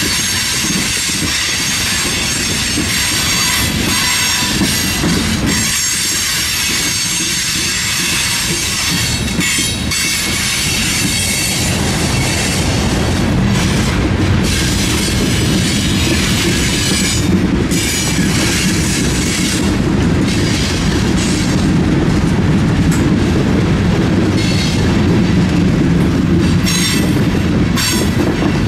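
Freight train cars rolling past, steel wheels squealing against the rails with a clickety-clack over the rail joints. The low rumble grows heavier about halfway through.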